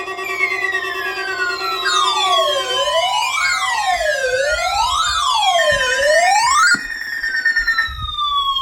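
Electronic siren-like sound: long tones glide slowly down in pitch while, from about two seconds in, a wail sweeps down and back up roughly every second and a half, then cuts off abruptly near the end. A steady low tone underneath stops about three seconds in.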